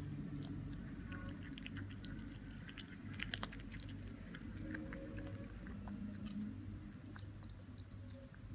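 A kitten chewing and biting raw minced meat from a ceramic bowl: a run of quick small clicks, busiest about three seconds in, over a low steady hum.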